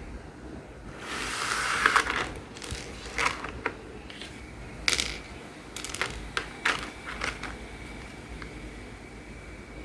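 Packaging rustled by hand, then a scatter of small sharp clicks and taps from plastic toy building parts being handled and set down.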